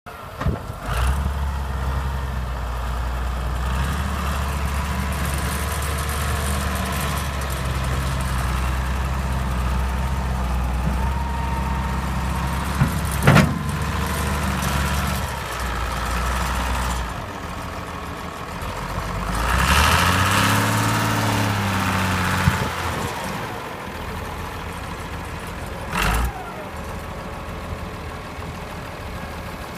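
John Deere 544 wheel loader's diesel engine running at a steady idle, with a single sharp clack about 13 seconds in. Around 20 seconds it is revved up and back down, then settles to a quieter idle.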